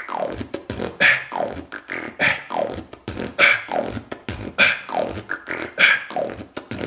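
Beatbox pattern built on the cough snare: a sudden burst of air from the throat, deep and full-bodied, landing as the strongest hit about every 1.2 seconds, with quicker mouth-made beats and short falling tones between.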